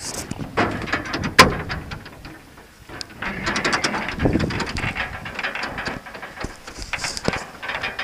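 Handling noise from climbing over a combine: clothing rubbing against the microphone, and boots and hands knocking and scraping on the machine's sheet-metal panels and steps, with one sharp metal knock about a second and a half in.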